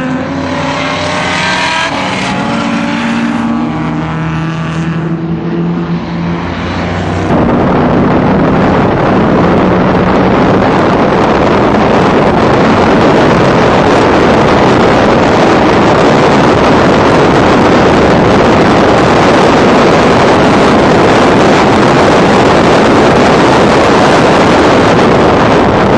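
Race car's engine running hard, its pitch climbing and stepping down as it shifts. About seven seconds in, a loud, steady rush of wind on the microphone takes over and drowns the engine out.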